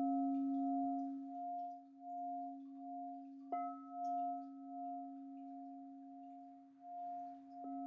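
Crystal singing bowl struck with a mallet and ringing, a low note with higher overtones that waver in level; it is struck again about three and a half seconds in and once more near the end.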